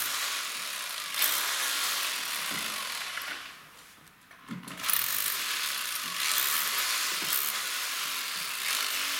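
Power drill with a masonry bit chipping into plaster to free an old electrical wire from the wall, a steady rattling grind. It stops for about a second and a half midway, then starts again.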